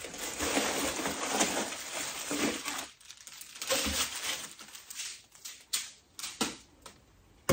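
A clear plastic bag crinkling and rustling as a bagged faux greenery spray is pulled out of a wicker basket, followed by a few light taps and clicks.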